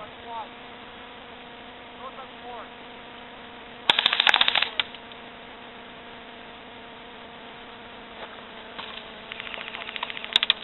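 Airsoft gun firing two rapid full-auto bursts: a loud burst of a little under a second about four seconds in, and a fainter, longer one near the end.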